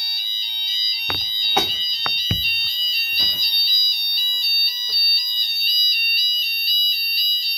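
Fire alarm sounders going off together: a steady high-pitched tone over a lower tone that alternates between two pitches. A few short knocks sound between about one and two and a half seconds in.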